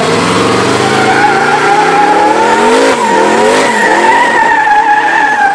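Twin-turbo LS V8 of an Oldsmobile 442 revving hard and rising in pitch, with a dip about three seconds in, while its spinning rear tires squeal steadily in a smoky burnout.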